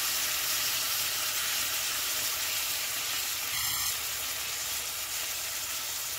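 Sauce sizzling on a hot cast-iron sizzling plate, a steady hiss that slowly fades a little. A brief faint ringing tone sounds a little past the middle.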